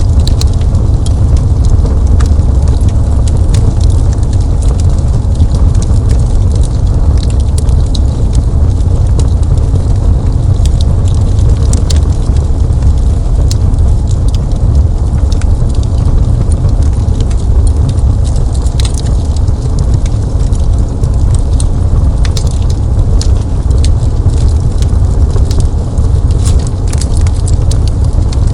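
Fireplace fire crackling over a steady deep rumble, with many small sharp pops and snaps scattered irregularly throughout.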